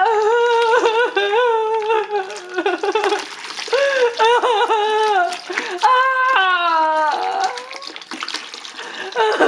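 A high voice wailing in long, wavering cries, with short breaks between them.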